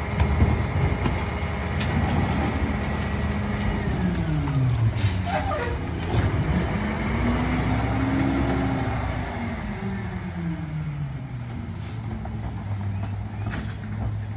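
Diesel engine of an International rear-loader garbage truck held at a steady speed, then dropping, revving up and dropping again as the truck moves off, and settling to a lower steady run near the end. A short air hiss comes about five seconds in.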